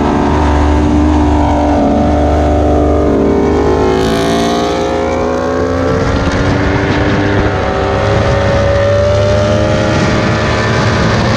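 Sport motorcycle engines on the move, with wind rush on the microphone: the engine note falls steadily over the first few seconds as the bikes slow through a bend, a brief rush of hiss comes about four seconds in, then the note climbs again under acceleration and holds steady near the end.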